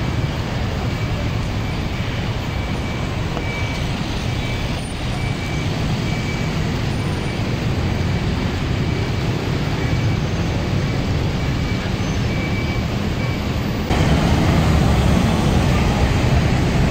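Steady city street traffic noise, with a high beep repeating evenly through most of it. Near the end the noise becomes suddenly louder.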